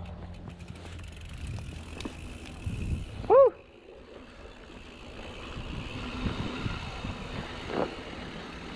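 Mountain bike rolling over a dirt singletrack: tyre rumble and rattle with wind on the microphone. About three seconds in comes one short, loud chirp that rises and falls in pitch.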